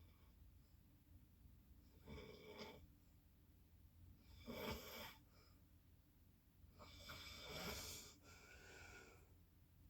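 A sleeping person snoring: three quiet snores a couple of seconds apart, the middle one the loudest and the last one drawn out with a softer tail.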